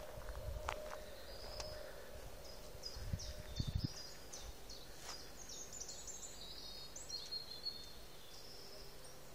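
Songbirds singing in the background, a string of short, high downward-sweeping chirps. A few low, muffled thumps come about three to four seconds in.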